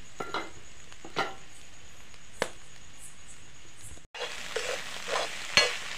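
Crumbled fish roe frying in oil in a kadai on a low flame: a steady soft sizzle with a few sharp pops, the 'chitta chitta' crackle of the roe browning.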